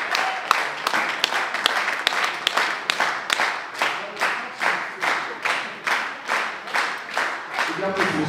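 Audience clapping in unison, a steady beat of about two and a half claps a second over general applause. Music starts near the end.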